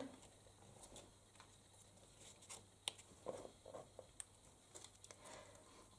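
Near silence, with a few faint light taps and rustles of hands handling cardstock: a small paper bow pressed onto a card and tiny punched paper bows picked up off a cutting mat.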